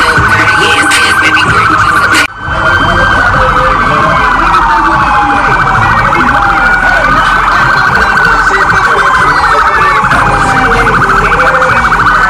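Police siren sounding loudly: a fast pulsing high tone with slower falling wails sweeping beneath it, briefly dropping out about two seconds in.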